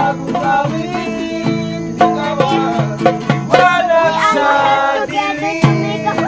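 Acoustic guitar being strummed in a steady rhythm, played live, with a voice singing along to it.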